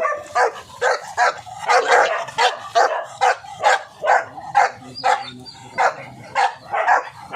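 Young pit bull barking over and over in a steady run of sharp barks, about two a second.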